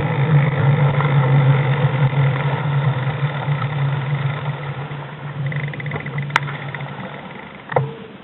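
Motorcycle engine running at low speed with a steady hum that fades away over the last few seconds. A sharp click about six seconds in and a short, sharp sound near the end.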